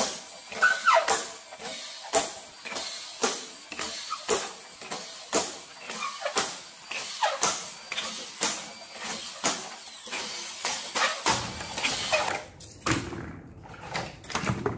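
Plastic water bottles and caps clicking and knocking as they are handled and capped, sharp clicks coming roughly once a second. A low rumble comes in near the end.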